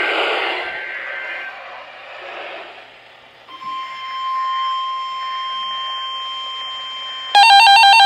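Weather radio static hiss, then about three and a half seconds in a single steady NOAA warning alert tone comes through the radio. Near the end a RadioShack weather alert radio's own alarm cuts in abruptly, a loud warbling electronic beeping: the radio's alert being triggered by the weekly test.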